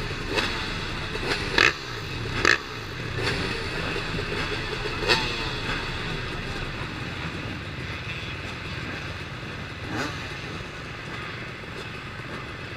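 A pack of dirt-bike engines idling together on a start line. A few short, sharp throttle revs stand out: twice in the first three seconds, once about five seconds in, and once near ten seconds.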